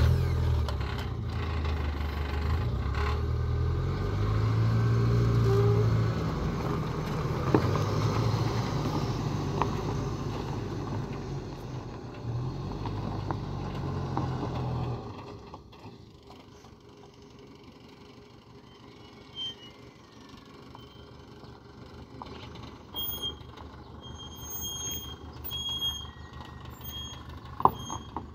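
Mazda B2000 pickup's four-cylinder petrol engine running just after starting, with a steady low hum. About halfway through it drops off to a faint sound.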